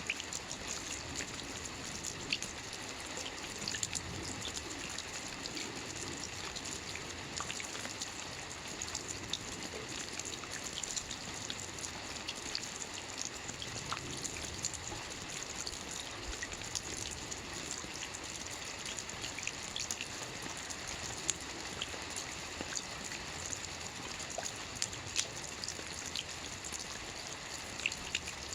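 Steady rain: a continuous even hiss dotted with many sharp ticks of single drops striking close by.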